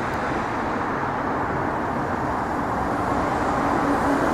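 Steady road traffic noise, with a vehicle's engine hum coming in about halfway through and growing louder as it approaches near the end.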